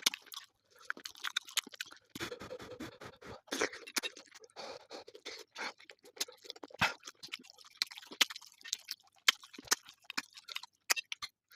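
A person eating close to the microphone: irregular wet smacks, sharp clicks and crunches of chewing, coming thick and fast.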